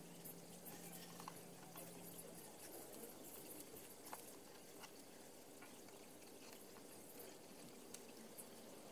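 Near silence: faint scattered ticks and scratches of a craft knife cutting a paper stencil on a cutting mat, over a low hum that stops about two and a half seconds in.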